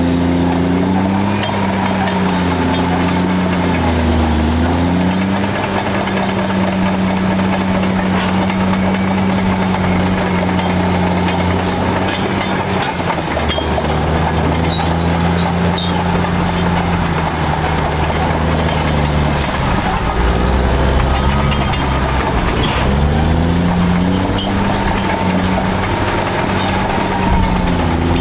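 Caterpillar D7 and D8 bulldozer diesel engines working under load while dragging an anchor chain through scrub. The engine note is loud and continuous, dipping and recovering several times, notably about a second in, around four seconds in and again near the end.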